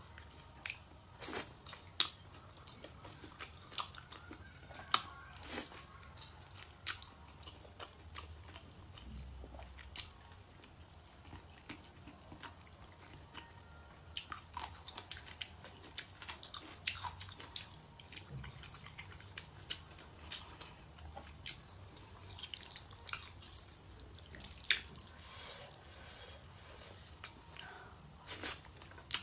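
Close-miked chewing of spicy stir-fried rice noodles, wet mouth clicks and smacks coming at irregular intervals.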